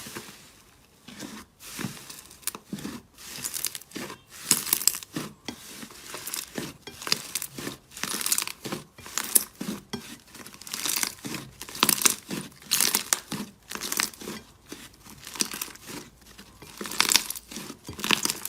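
Slime being squeezed and pressed by hand, giving an irregular run of sticky pops and crackles.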